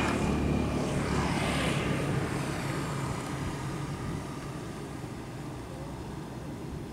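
A motor engine's steady low hum, loudest at the start and fading gradually.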